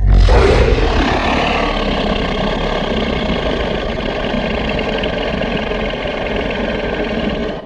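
Dinosaur sound effect: a steady, low, engine-like rumbling growl that starts suddenly and holds for about seven and a half seconds before cutting off with a brief fade.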